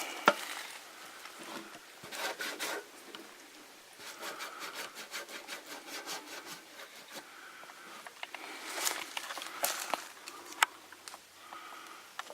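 Irregular rustling and scraping with a few sharp clicks, on and off: the camouflaged plastic geocache box being handled and opened.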